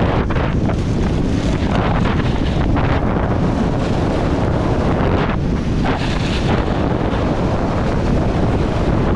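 Heavy wind buffeting an action camera's microphone while riding a snowboard down a groomed slope. Over it, the board's edge scrapes over the snow in waves that swell and fade.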